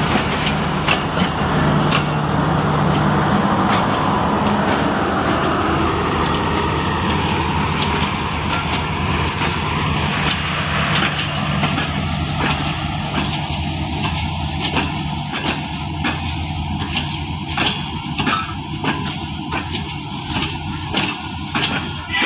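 Passenger coaches of a departing express train rolling past, the wheels clicking over rail joints, with a thin steady wheel squeal held over a continuous rumble.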